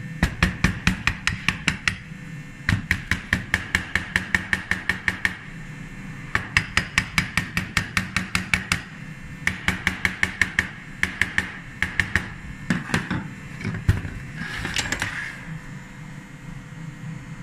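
Steel scraper blade worked in quick short strokes against a gray cast iron part, making runs of sharp metallic clicks about seven a second with short pauses between runs. Near the end comes one brief, rougher scrape. A faint steady hum lies underneath.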